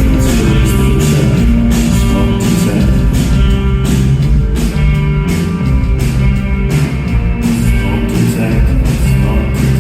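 Rock band playing live, an instrumental passage with no singing: a drum kit keeps a steady beat under sustained guitar and bass tones, loud throughout.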